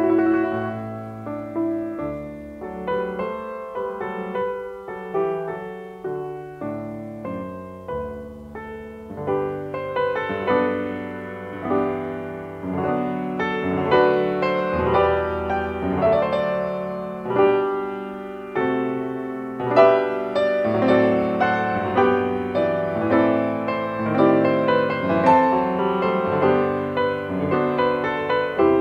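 Solo piano playing a chorale prelude in C major: chords held for a while at first, then struck more quickly and louder from about ten seconds in, swelling again near twenty seconds.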